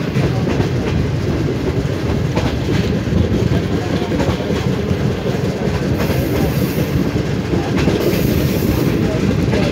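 Passenger train running, heard from aboard: a steady rumble of wheels on rail, with a few irregular clacks as the wheels pass rail joints.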